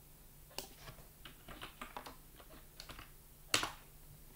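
Computer keyboard keys tapped at an irregular pace while a line of code is deleted, with one louder key strike about three and a half seconds in.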